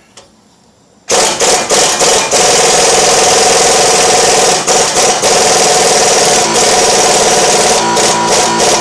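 Large impact wrench hammering on a rusted, stuck suspension bolt. It starts about a second in with a few short bursts, then runs almost continuously with brief pauses.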